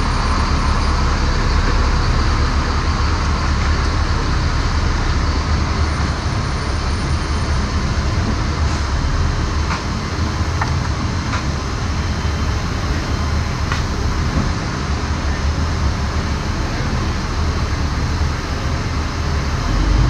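Loud, steady engine rumble in a C-17 cargo hold as an M142 HIMARS launcher truck drives down the ramp and off the aircraft. A few faint ticks come through around the middle.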